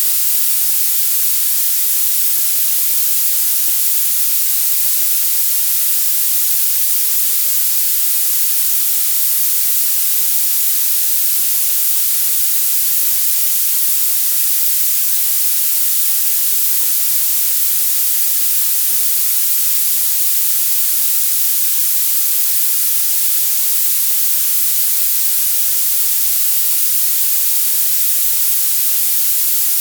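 Synthetic violet noise: a steady, loud, very bright hiss with its energy piled into the highest frequencies and almost no low end.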